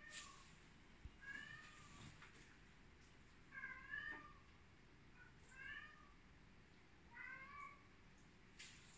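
Cat meowing: four short, faint meows about every two seconds, each bending up and then down in pitch.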